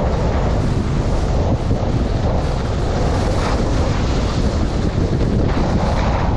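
Wind buffeting the microphone of a GoPro on a skier running fast downhill at about 55 to 66 km/h: a steady, heavy low rumble.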